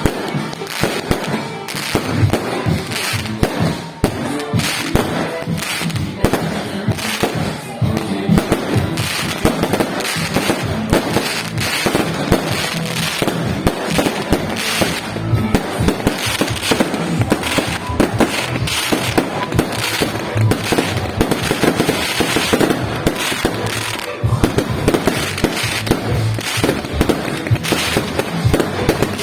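Fireworks going off in a dense, unbroken barrage: many bangs and crackles a second, overlapping.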